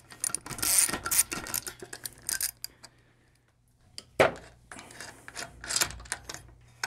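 A 17 mm socket wrench worked in quick, short counterclockwise strokes, loosening the nylon locking nut on an electric outboard's propeller shaft, for about two and a half seconds. About four seconds in comes one sharp clunk of a tool set down, followed by light metallic clinks.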